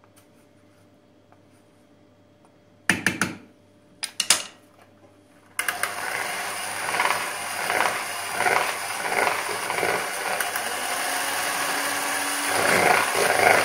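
A few sharp knocks, then a little over five seconds in an electric hand mixer switches on and runs steadily with a high whine. Its beaters whip a thick, cooled starch pudding with whipped-cream powder in a stainless bowl, and the sound swells and dips as they move through the cream.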